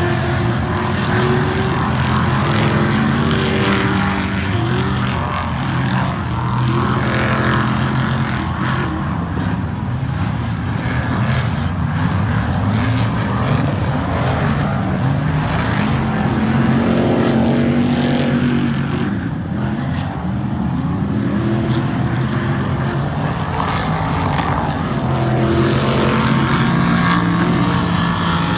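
Ultra4 off-road race cars' engines running hard across the course, several at once, their pitch rising and falling as they accelerate and lift off.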